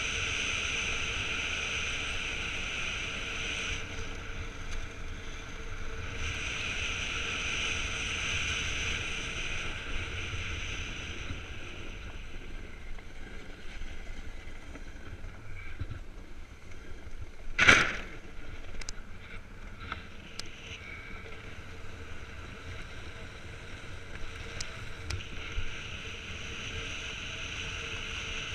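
Iceboard's runners hissing over lake ice in a steady rushing noise, with a low wind rumble on the microphone. About two thirds of the way through comes one loud sharp knock, followed by a few lighter clicks.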